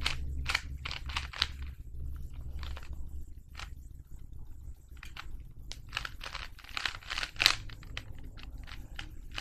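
Plastic Rubik's cube being twisted by hand: irregular runs of short clicking, scraping turns of its layers, with a pause in the middle and a dense flurry near the end.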